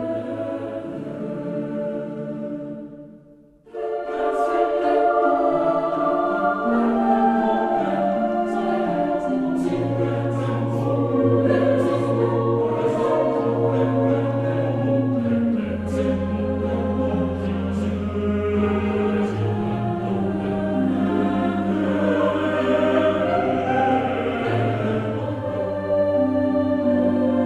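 Background music with held chords over a bass line. It fades out about three seconds in and starts again a moment later.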